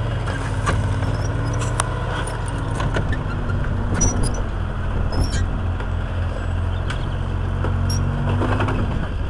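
Tracked armoured personnel carrier's engine running steadily, with sharp metallic clicks and clanks from the steel tracks and running gear scattered through. The engine note drops away near the end.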